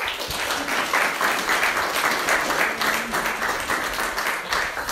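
Audience clapping in applause, a steady patter of many hands that stops near the end.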